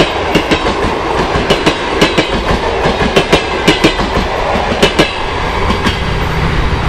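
Passenger coaches rolling past at speed, their wheels clicking over the rail joints in quick pairs over a steady rumble. The clicking thins out about five seconds in as the last coach goes by.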